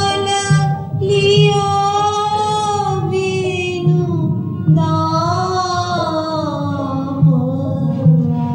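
A woman singing a slow Indian devotional song in long, gliding melodic phrases, with low drum strokes beneath.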